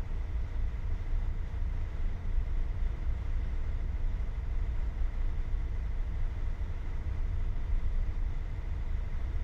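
Steady low rumble of a ship's running machinery, with a faint steady high tone above it.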